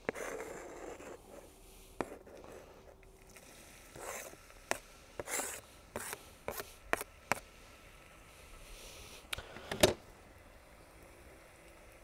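Chopped onion being scraped off a cutting board into a stainless steel pot: scrapes of the board and onion, with a string of sharp clicks and knocks, the loudest near the end.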